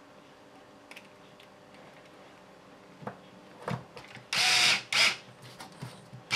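RC crawler's steering servo driving the front wheels in two short buzzing bursts, each under a second, about four and five seconds in, after a few light clicks of handling.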